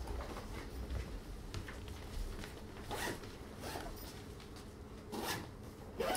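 Bags being handled: a few short rustling, zip-like swishes, four clear ones in the second half, the loudest right at the end.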